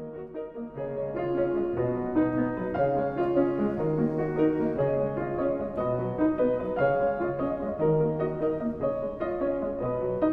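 Background piano music, notes played one after another in a steady flow, growing louder about a second in.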